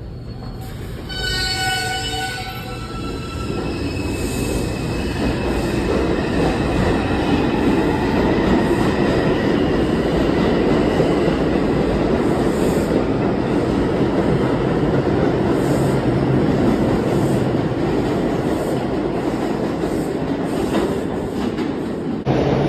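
New York City Subway R142-series train pulling out of the station: a short run of stepped electronic tones from its traction motors as it starts off, then the wheels rumble and clatter on the rails, growing louder as the cars pass, with a light wheel squeal.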